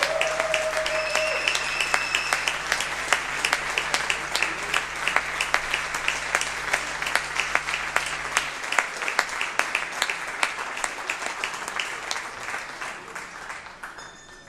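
Concert audience applauding, dense clapping that thins and fades away near the end.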